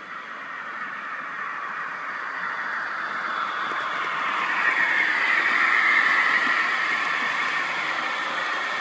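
1/32-scale model Class 22 locomotive running on track, its twin Maxon motors with ABC gearboxes and Delrin chain drive giving a steady whir as it pulls a train of brass carriages. The sound grows louder to a peak about six seconds in, then eases a little.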